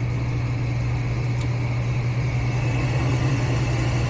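Gas furnace draft inducer motor running with a steady hum at the start of the heat cycle, the hot-surface igniter glowing before the gas valve opens. A faint click about one and a half seconds in.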